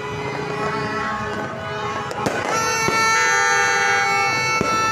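Several long horn blasts at different pitches overlapping and held, growing louder about two and a half seconds in, over fireworks crackling with a few sharp bangs.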